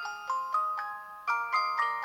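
Maxcom Comfort MM831 3G mobile phone playing a bell-like ringtone melody: a quick run of chiming notes, about four a second.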